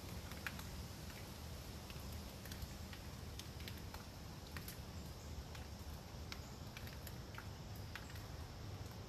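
Drops of water pattering irregularly on leaves in light, sharp ticks after a tropical storm, over a low, steady rumble of wind.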